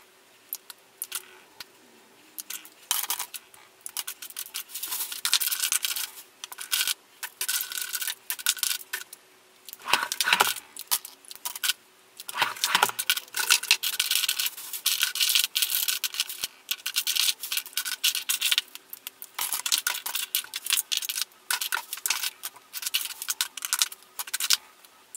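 Lipstick cases clicking and clattering against one another as they are picked out of a drawer organiser and gathered by hand, in quick irregular runs of clicks with short pauses between them.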